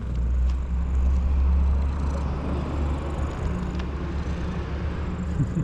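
A motor vehicle passing by: a low rumble that swells over the first two seconds and fades about three and a half seconds in.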